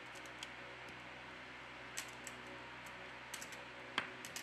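Scattered small sharp clicks as fingertips press parts down onto a Sony Xperia Z5's motherboard, seating its metal shielding and connectors. They come over a steady hiss, and the loudest click comes about four seconds in.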